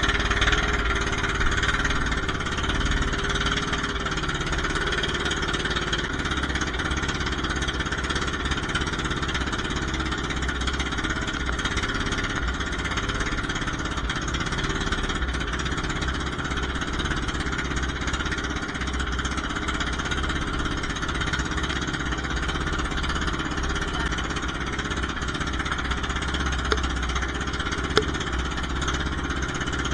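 Outrigger fishing boat's engine running steadily under way, a rough, even chugging, with two brief knocks near the end.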